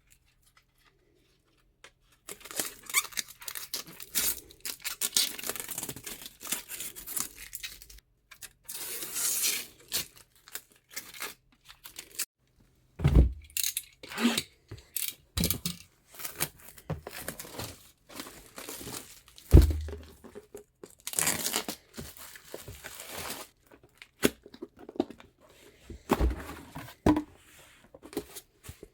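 Plastic and paper packaging being handled, torn and crumpled, with crinkling and rustling throughout and a few dull knocks as parts are set down or boxes bump.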